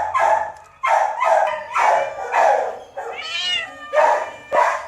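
Shelter cats meowing over and over, one call after another, with one longer, drawn-out meow about three seconds in.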